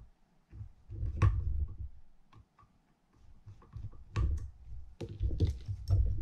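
Small screwdriver working out the screws of a Penn International II 50T reel spool's clicker plate, with the metal spool handled. Irregular clusters of sharp metal clicks with dull knocks, loudest about a second in and again between four and six seconds.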